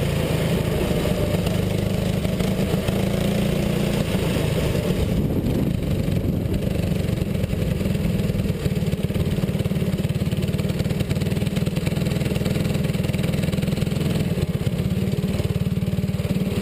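Go-kart engine running close to the microphone, dropping from steady running in the first couple of seconds to a rough, pulsing low idle as the kart rolls slowly into the pits and stops.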